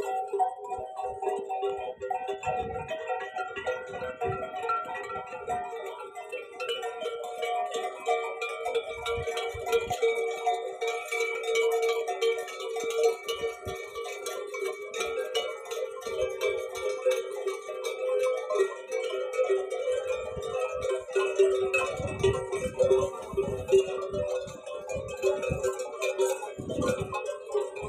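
Bells on the necks of a walking camel herd clanking and ringing continuously in an irregular jangle of many overlapping tones, with scattered low thuds in the second half.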